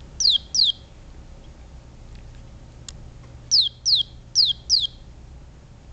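Electronic Easter chick toy cheeping, set off when the two pegs on its feet are bridged by touch: six short, identical chirps, each falling in pitch, two near the start and four in a quick run a little past the middle.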